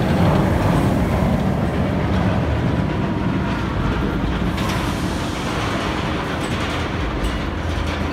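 Steel roller coaster train running on its track: a steady rumble with a continuous clatter.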